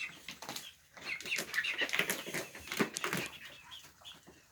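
Chickens clucking softly with short chirps, over close rustles and light clicks from the rooster preening its feathers.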